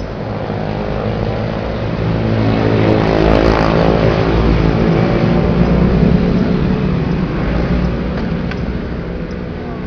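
Motor scooters riding past close by on the street. The engine noise builds to a peak around the middle and then fades away.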